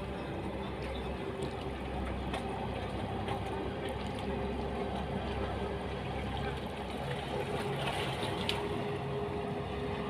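Boat engine running with a steady hum, over water sloshing against the hull.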